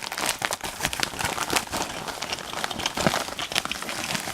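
Packing material crinkling and rustling as hands unwrap a small mailed item, a dense run of irregular crackles and rustles.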